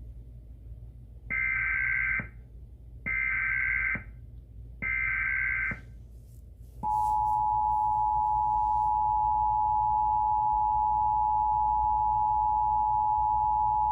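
Emergency Alert System header: three short bursts of digital data screech, each about a second long, then the steady two-tone EAS attention signal starting about seven seconds in. The alert announces a required monthly test.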